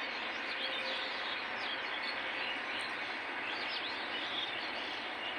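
Birds chirping in many short, quick notes over a steady outdoor hiss.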